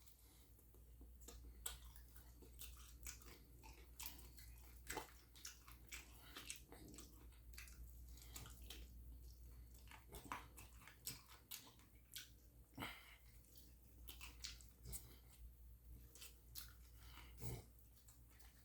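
Close-miked chewing and mouth sounds while eating: faint, irregular small clicks and smacks, several a second.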